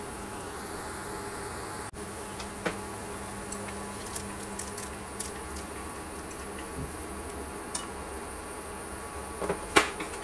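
Water boiling in a stainless steel pot on an induction cooker, over a steady electrical buzz from the cooker. A few light clicks of a utensil against the pot, the loudest near the end.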